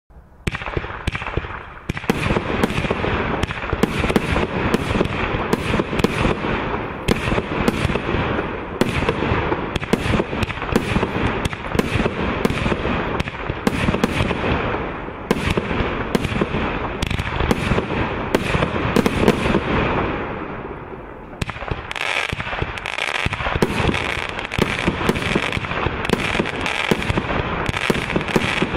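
Compound fireworks cake (fused multi-shot battery) firing a fast, continuous barrage of launches and bursts. The shots ease off briefly about twenty seconds in, then pick up again.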